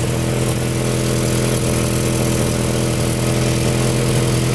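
Turbocharged Honda B18 four-cylinder in a DC2 Integra Type R, idling steadily with a huge exhaust leak at the turbo manifold: the gasket is blown and the manifold bolts worked loose.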